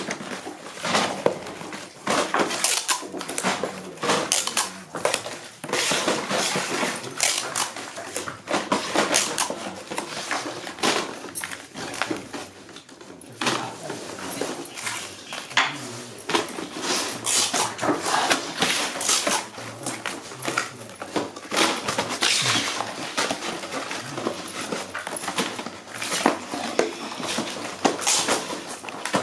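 Hand-packing noise: triangular paper-and-foil crackers rustling and clicking as they are dropped into cardboard boxes, with boxes slid and tapped on a concrete floor, in an irregular run of short scrapes and taps.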